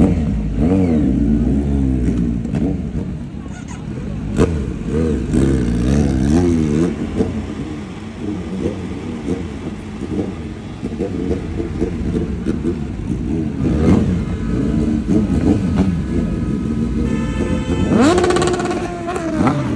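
Kawasaki Z900's inline-four, fitted with a twin-can aftermarket exhaust, revved in quick throttle blips, its pitch swinging up and down. More motorcycle revving follows from a procession of bikes and cars, with a rising rev near the end.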